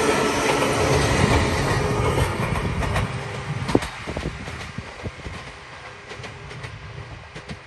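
Sangi Railway 801 series electric train running past close by, then pulling away, its running noise fading steadily after about two and a half seconds. The wheels click over the rail joints, with one sharp click a little before the middle.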